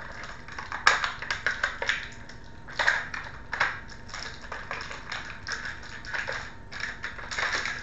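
Stiff clear plastic packaging crackling and clicking in irregular bursts as an action figure is worked out of its plastic tray. The loudest crackles come about a second in and around three seconds in.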